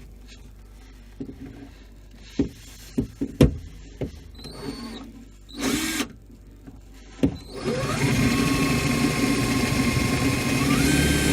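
Power drill boring through the plug stuck in a fridge's cable hole. A few handling knocks and a brief burst of the drill come first. From about two-thirds of the way in, the drill runs steadily, and its pitch steps up near the end.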